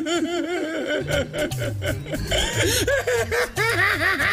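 Men laughing: a long, unbroken run of quick, high-pitched chuckles. A music bass line comes in underneath about a second in.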